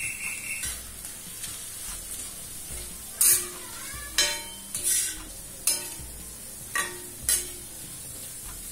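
Chicken with onion and tomato sizzling on a flat iron tawa while a spatula stirs it, scraping across the pan about six times between roughly three and seven and a half seconds in.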